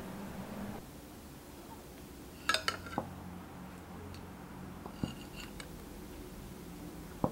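A metal spoon clinking against a glass jar while grapefruit flesh is spooned in: a quick cluster of three clinks about two and a half seconds in, then a few single ones.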